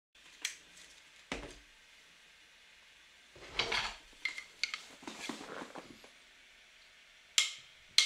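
Scattered light clicks and knocks, one with a dull thump, and a few short rustles of small objects being handled.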